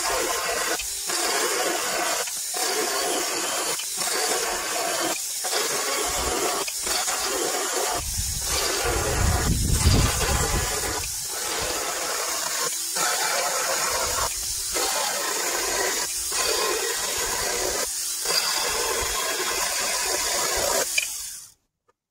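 Saker mini cordless electric chainsaw running and cutting through a pine 2x4, one cut after another, with a short break about every second and a half. The sound cuts off abruptly near the end.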